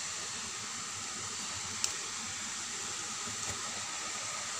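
Omapodi (gram-flour sev) strands deep-frying in hot oil, a steady hiss and sizzle, with a faint click about two seconds in. The freshly pressed dough is still giving off moisture and is not yet ready to be turned.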